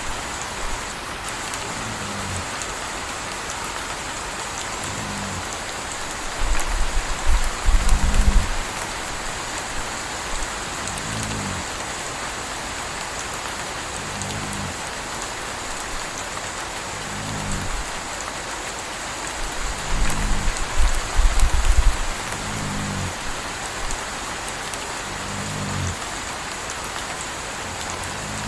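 Steady rain with a puppy snoring softly, one short low snore about every three seconds. Twice a deeper low rumble swells up for about two seconds.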